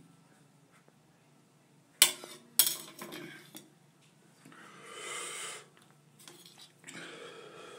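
Two sharp clicks about two seconds in, then a long hissing drag on a cigarette from about halfway through, and another breath later on as the smoke is let out.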